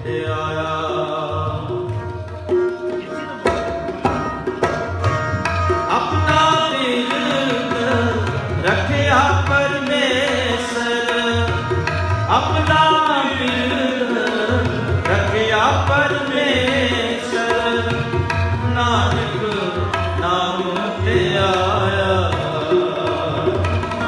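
Sikh kirtan: two Nagi harmoniums hold sustained chords while a tabla keeps the rhythm, and a male voice sings long, gliding melodic lines over them.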